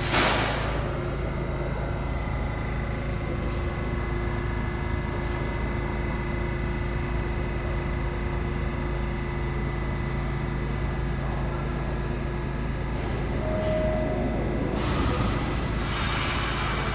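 New York City subway train of R68-family cars in the station, with a steady low electrical hum. There is a short blast of air at the start. From about 15 s in, a loud hiss with high squealing tones sets in, typical of a train's air brakes and wheels.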